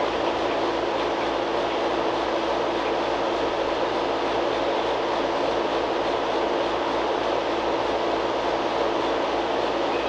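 Steady, loud mechanical drone with a low hum running through it, unchanging throughout.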